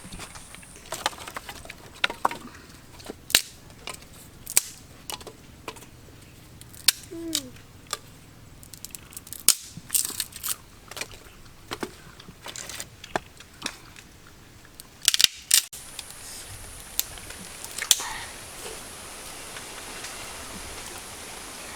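Scattered sharp clicks and knocks at irregular intervals, a dozen or more; about sixteen seconds in they give way to a steady hiss.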